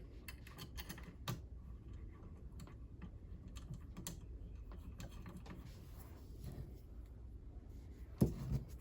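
Light, irregular clicks and taps of small metal parts being handled as a sewing machine's plate is put back and its screws driven in, with a heavier knock near the end.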